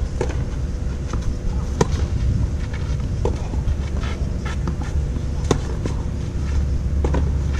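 Tennis ball struck back and forth by rackets in a baseline rally on a clay court, a sharp pock about every one and a half to two seconds, the near player's hits louder than the far ones. A steady low rumble lies under it.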